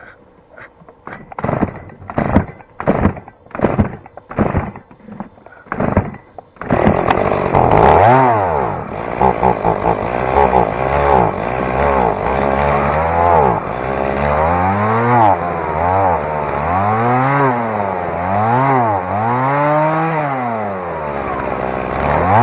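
Two-stroke chainsaw being pull-started: about ten quick pulls of the starter cord in a row, then the engine catches about seven seconds in and runs, revved up and down over and over with the throttle.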